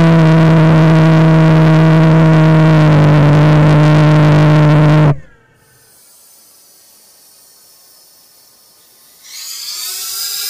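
Homemade valveless pulsejet running with a loud, steady drone at one low pitch, which dips slightly about three seconds in; the engine cuts out suddenly about five seconds in, leaving only a faint hiss.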